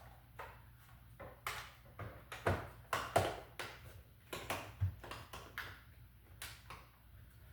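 Plastic power strip housing being handled and pressed together: a string of irregular light clicks and knocks, the sharpest about two and a half and three seconds in.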